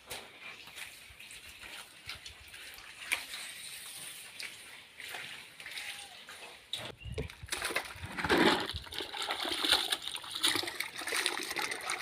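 Water splashing and sloshing as a floor is washed by hand; faint at first, it grows louder about seven and a half seconds in.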